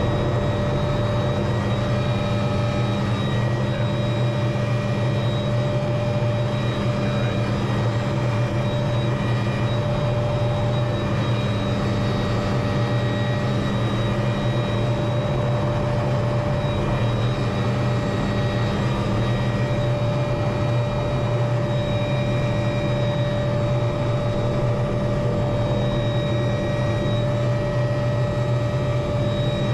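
A helicopter running, a steady drone with a few constant high whines over it.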